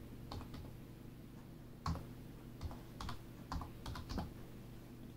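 Computer keyboard being typed on: a string of light, separate keystrokes at an uneven pace.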